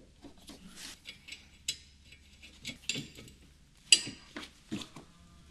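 Irregular light clicks and knocks of a wiper arm and the plastic cowl panel being handled and pressed into place at the base of the windscreen, with one sharper click about four seconds in.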